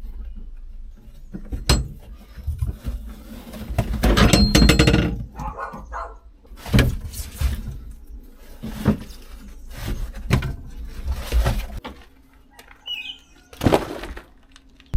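Irregular knocks, clatters and rustling of things being handled and moved about, with the loudest stretch of clatter about four seconds in.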